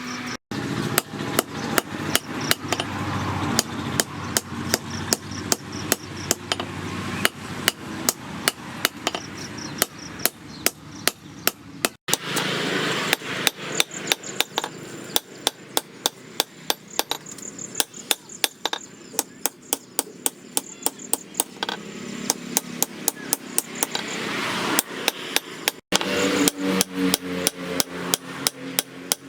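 Hammer blows on steel being forged into a knife blade, about two to three strikes a second, each with a short metallic ring.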